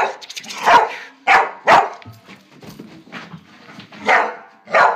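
Dog barking repeatedly: about six sharp, loud barks, three close together in the first two seconds and two more near the end.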